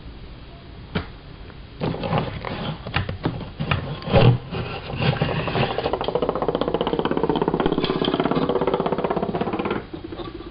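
Handling noise from work at the bench: a sharp click, then irregular knocks and clatter, then about five seconds of fast, even rubbing or rasping that stops suddenly.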